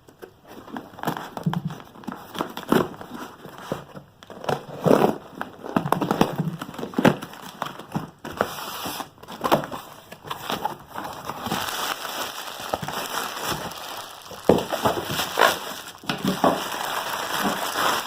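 Packaging crinkling and rustling as grocery products are unpacked by hand, with many irregular crackles and taps. The rustling gets denser and more continuous in the second half.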